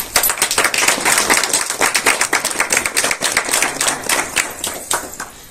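Audience applause: many hands clapping densely, starting suddenly and dying away near the end.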